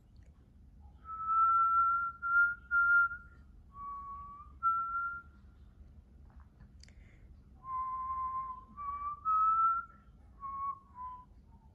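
A person whistling a slow tune of held notes in two phrases, with a pause of about two seconds between them and a brief click in the pause.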